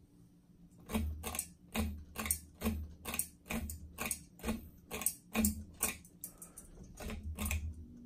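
SMC ceiling fan's pull-chain switch clicking over and over as the chain is pulled, a string of sharp clicks about two or three a second with dull thumps underneath, starting about a second in.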